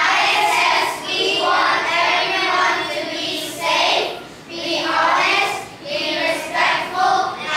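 A group of children singing together, in short phrases with brief breaks between them.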